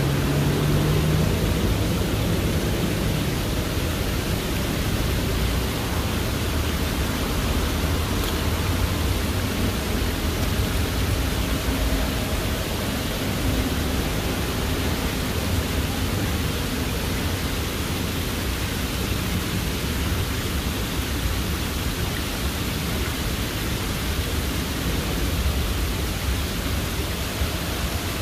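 Water cascading down the stone wall of an entrance-sign water feature, a steady, even rushing. A low vehicle hum fades out in the first few seconds.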